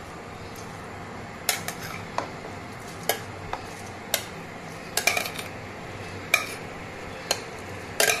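Irregular metallic clinks and knocks of a steel spoon and steel pot against the rim of a large aluminium cooking pot, as washed basmati rice is scooped and tipped into the biryani's masala water. The clinks come singly or in quick clusters, about one a second, over a faint steady hiss.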